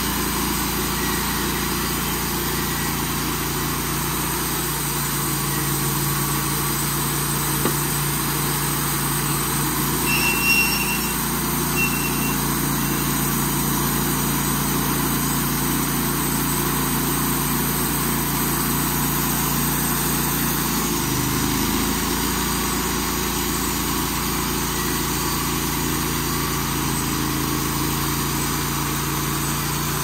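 Portable band sawmill's air-cooled engine running steadily, its low note shifting slightly about two-thirds of the way through. A couple of brief high chirps sound about ten to twelve seconds in.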